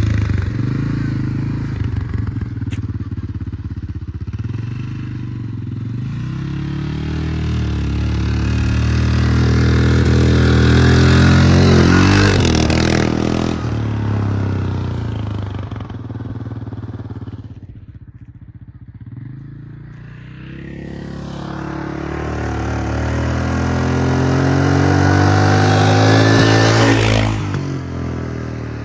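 ATV (quad bike) engine running and revving as it is ridden, swelling loud about a third of the way in, fading to its quietest a little past the middle, then building up again and dropping off near the end as the quad comes near and moves away.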